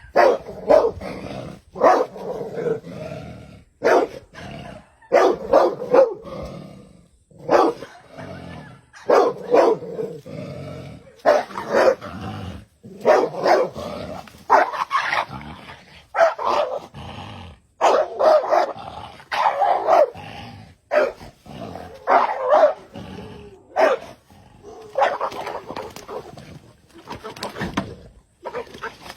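A dog barking repeatedly, in clusters of several barks every second or two with short pauses between.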